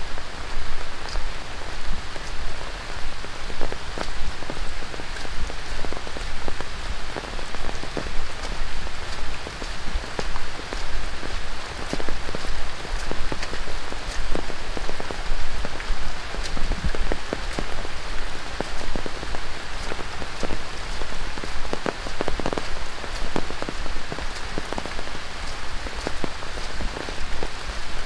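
Steady rain falling through a rainforest canopy onto leaves and a dirt path, with many sharp individual drop hits over a dense hiss.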